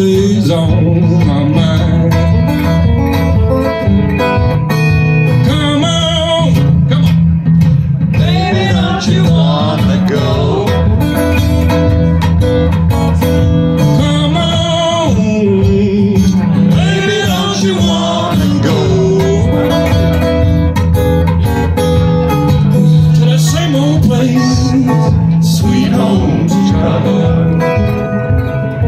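A live blues number on acoustic guitar with a harmonica solo played over it from a neck rack, the harmonica notes bending up and down over steady strumming.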